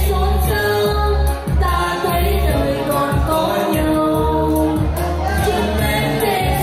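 Live duet singing of a Vietnamese ballad over amplified backing music with a steady, pulsing bass.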